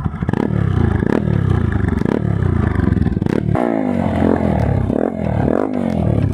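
Bajaj Pulsar NS200's single-cylinder engine through an Akrapovic-style aftermarket silencer with the dB killer fitted, revved over and over. It gives short surges about once a second at first, then its pitch falls and climbs again about three times in the second half.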